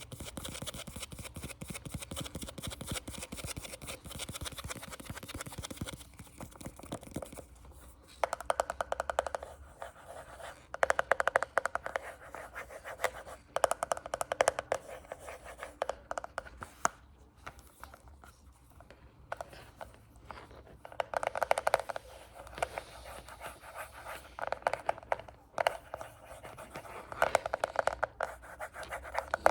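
Fast ASMR finger tapping close to the microphone: a dense run of quick taps and scratches for the first six seconds or so, then repeated bursts of rapid tapping a few seconds long with short pauses between.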